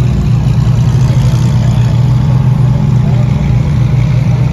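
Lamborghini Huracán's V10 engine running steadily at low revs, a loud, even low rumble, as the car creeps past.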